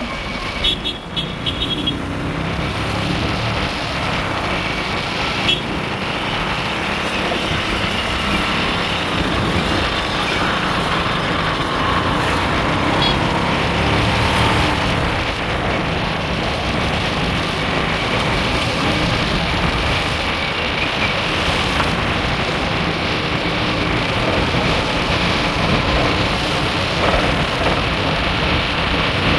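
Steady road traffic noise: car and motorcycle engines and tyres on a busy street, heard while moving along the road.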